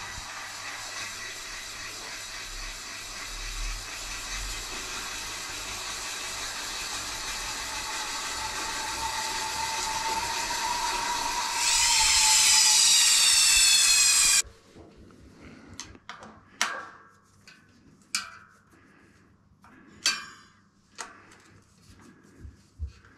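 Bosch Gen4 e-MTB drive spinning the rear wheel on a stand: a steady whine and whir that grows louder, then a louder whine falling in pitch as it winds down, cut off abruptly. After that, a run of separate clicks and knocks as the rear brake caliper is worked on with a hand tool.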